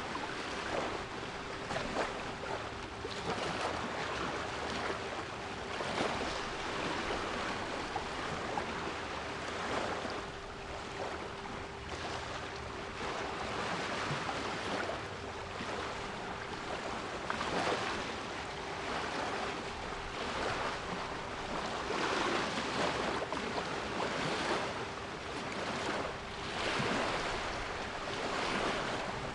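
Sea waves washing in and out, swelling and falling every few seconds, with a steady 396 Hz pure tone held underneath.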